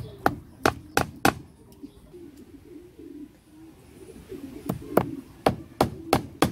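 Claw hammer driving nails through a bicycle tyre into the rim of a plywood wheel: about five quick metal-on-metal strikes, a pause of about three seconds, then another run of about six strikes.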